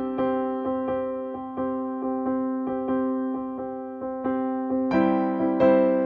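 Background music: gentle piano notes struck at an even pace, each fading away, becoming fuller and brighter about five seconds in.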